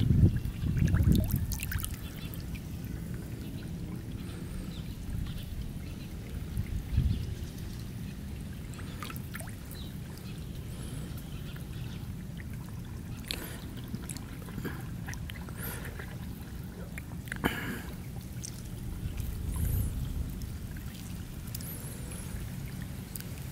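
Pond water splashing and sloshing at the surface as koi take food from a hand, over a steady low sound of moving water. The louder splashes come in the first two seconds, with single sharper ones about seven seconds in and again past the halfway mark.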